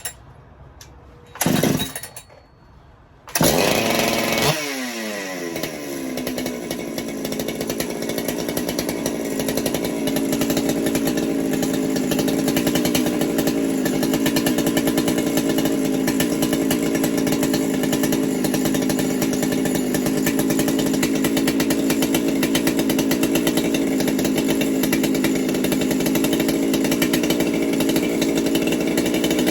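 Ported Husqvarna 395XP two-stroke chainsaw being started: a short burst about a second and a half in, then it fires about three seconds in, revs high and falls back, and settles into steady running with a muffler mod, ready for carburettor retuning.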